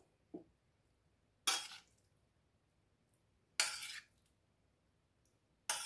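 Metal spoon clinking against a metal pan while bolognese meat sauce is scooped out onto the pasta: three short, sharp clinks about two seconds apart.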